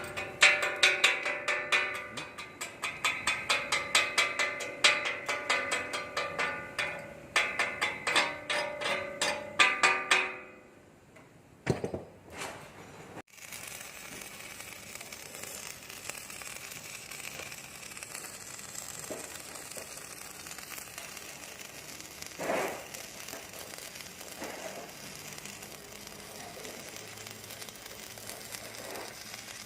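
A fast, even run of sharp ringing strikes for about ten seconds, then, after a brief gap, a steady crackling hiss typical of an arc welding steel beam.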